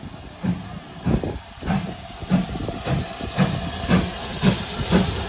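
GWR 42xx-class 2-8-0 tank locomotive No. 4270 pulling away from a stand: steam exhaust chuffs over a steady hiss of steam, the beats quickening from a little over one a second to about two a second as it gathers speed.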